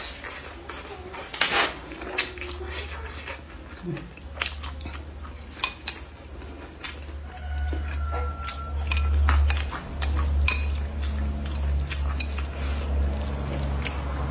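Wooden chopsticks clicking and scraping against a ceramic bowl of noodles, with close-up chewing sounds. A steady low rumble sets in about halfway through.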